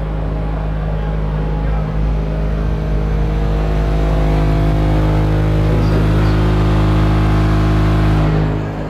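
A dB drag competition car audio system's subwoofers playing a steady, very loud deep bass tone, with a stack of higher overtones above it. This is a sound-pressure run being measured, with the reading climbing to about 165 dB. The tone swells over the first few seconds and drops off just before the end.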